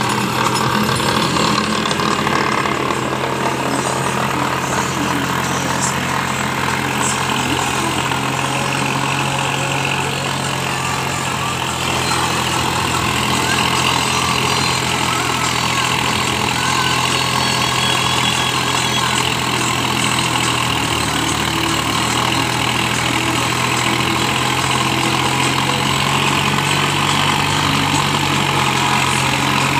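New Holland 5510 tractor's three-cylinder diesel engine running steadily under load while driving a rotavator through the soil. The engine note drops slightly about twenty seconds in and rises again near the end.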